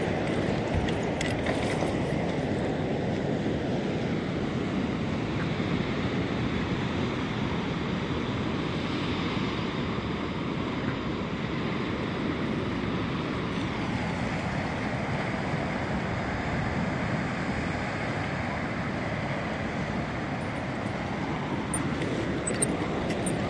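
Wind blowing across the microphone over the sea, a steady rushing noise, with a few faint clicks.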